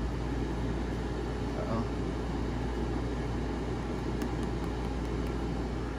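Power AirFryer XL air fryer's fan running with a steady whir over a low hum. A few faint clicks about four seconds in as its power button is pressed.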